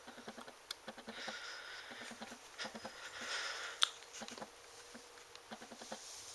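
Yellow Labrador retriever puppy panting quietly in short rhythmic breaths, with one sharp click about four seconds in as a small treat lands on the tile floor.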